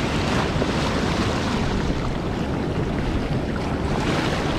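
Wind buffeting the microphone in uneven low rumbles over the steady wash of ocean surf.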